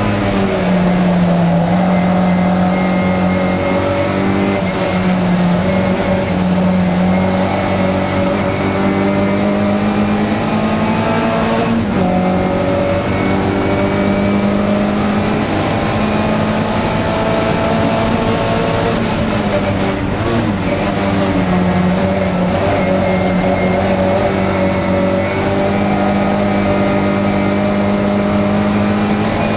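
1965 Morris Cooper S 1293's A-series four-cylinder engine running hard at racing revs, heard from inside the cabin. Its note holds high, then dips and climbs again several times as the revs fall and rise, with one sudden break about halfway through.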